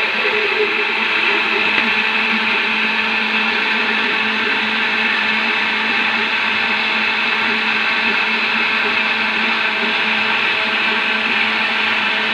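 Countertop blender running steadily, beating a liquid batter of eggs, oil and sugar in its jar.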